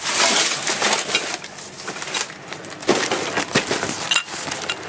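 Rummaging through dumpster trash: a dense crackle of rustling, crinkling packaging with sharp knocks and clatters, the strongest about three and four seconds in.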